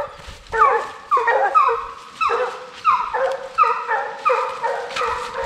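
Bear hounds baying on a bear's track, giving mouth over and over, about two calls a second, each call falling in pitch.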